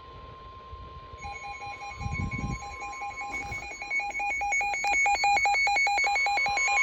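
Electronic emergency alert tone: a rapid two-pitch warble, alternating quickly between a lower and a higher beep, fades in about a second in and grows steadily louder. A steady single tone plays under it at first and stops about three seconds in.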